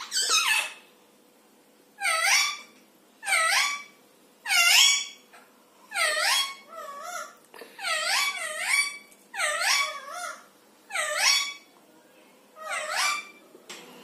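Alexandrine parakeets calling: a string of loud, harsh squawks, about one every second and a half, each dipping and then rising in pitch.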